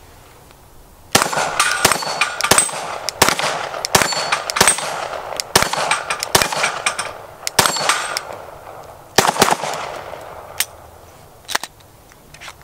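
Glock 19 Roland Special pistol with a KKM compensator firing a string of 9mm shots, 124-grain, unevenly spaced, starting about a second in. The shots mix with the ringing clang of steel plates being hit.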